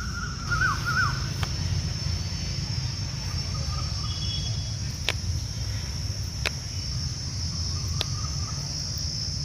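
Steady high-pitched chirring of crickets over a low steady rumble, with faint sharp clicks about every second and a half.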